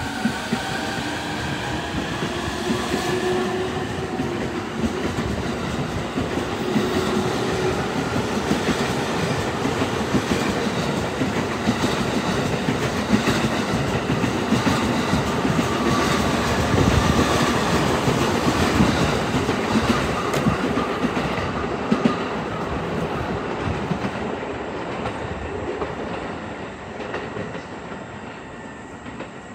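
E231 series electric train pulling away: the inverter and traction motors whine, rising in pitch over the first few seconds, under clatter of wheels over rail joints that grows louder as the cars pass and fades near the end.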